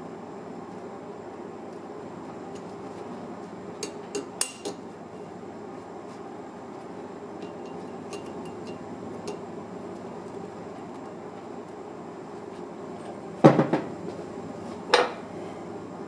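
Metal tools and parts clinking against each other: a few light taps about four seconds in, then two louder metallic knocks with a short ring near the end, over a steady background hum.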